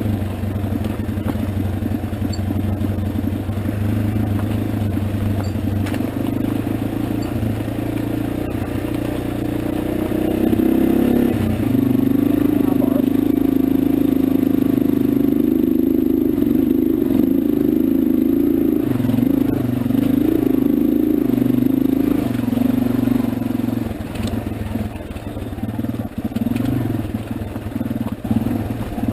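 Motorcycle engine running steadily. It gets louder and changes pitch about eleven seconds in, then eases off about five seconds from the end.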